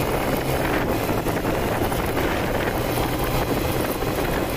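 Motorcycle engine running steadily at riding speed, with wind rushing over the microphone and tyres rumbling over brick paving.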